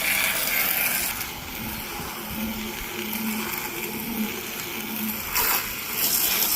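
Pressure washer spraying plain rinse water onto house siding and windows: a steady hiss of spray that is louder in the first second and again near the end as the jet moves.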